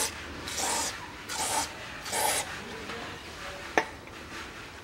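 Aerosol can of silicone lubricant spraying through its straw nozzle onto a new wheel bearing in three short hisses. A single sharp click follows a little later.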